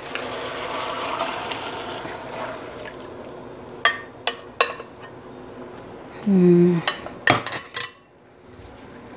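Marinated pork innards and their dark marinade poured and scraped into a hot pan of sautéed vegetables, a wet pouring and sizzling noise for the first few seconds. Then several sharp knocks of the spatula against the pan.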